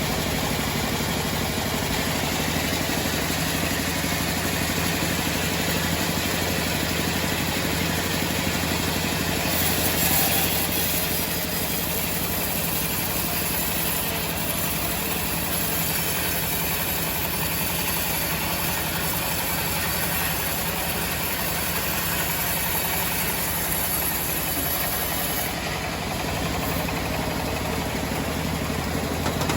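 Homemade band sawmill running steadily, its drive motor giving a constant low drone. About a third of the way in a high hiss joins and lasts for about sixteen seconds, the sound of the blade working through the teak log.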